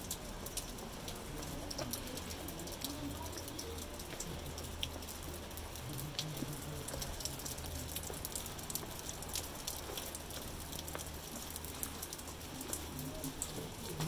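Steady, rain-like hiss of the Staubbach waterfall's falling water and spray, with many scattered drip-like taps.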